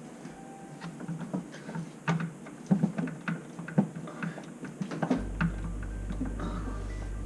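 Irregular small clicks, taps and knocks from fittings and tools being handled. About five seconds in, steady background music comes in under them.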